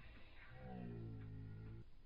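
Faint music: one low note held for over a second.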